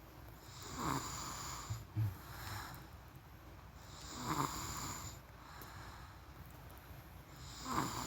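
A person snoring in sleep: three snoring breaths, evenly spaced about three and a half seconds apart.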